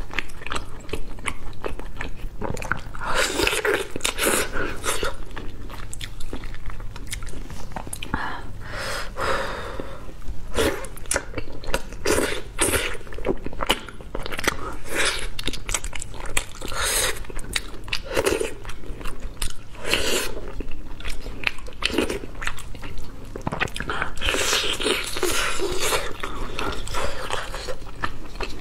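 Close-miked eating of a red-braised pork trotter: biting into the skin and chewing, with many short, irregular smacking clicks.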